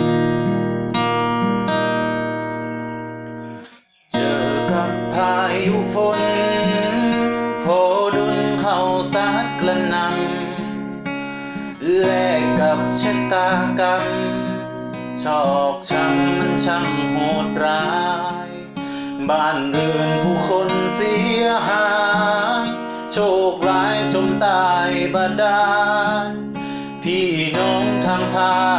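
A man singing a song to his own acoustic guitar strumming. The guitar intro stops briefly about four seconds in, and the singing comes in right after.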